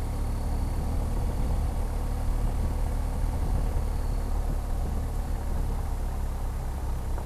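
BMW R 1250 GS Adventure's boxer-twin engine running steadily under light load as the motorcycle climbs a gentle gravel uphill, with road and wind noise.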